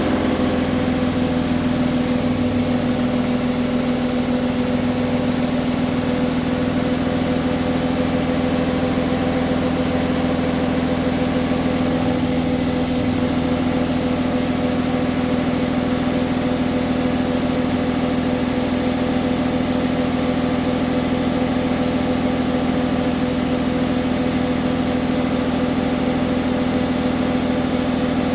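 Hoover washing machine in its final spin at full speed, 1400 rpm: a steady motor whine and drum rumble holding an even pitch.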